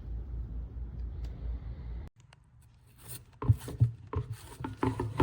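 A steady low motor hum stops abruptly about two seconds in. After a second of near silence come irregular clunks and scraping, the sound of hard plastic parts being handled, loudest near the end.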